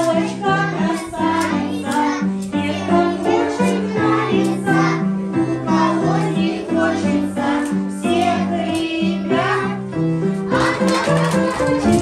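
A children's song: young children singing together over an instrumental accompaniment with a steady, evenly stepping bass line.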